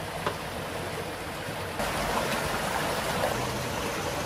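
A stream running over rocks, a steady rush of water that grows louder about two seconds in. There is a single short click shortly after the start.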